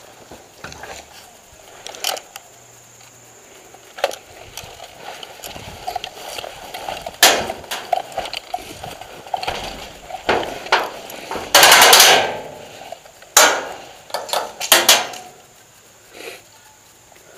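Scattered sharp cracks and knocks of airsoft gunfire, with a louder, denser burst about twelve seconds in and a short cluster a little after.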